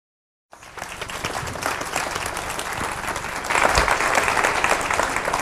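Audience applauding, a dense patter of many hands clapping that starts about half a second in and grows louder about three and a half seconds in.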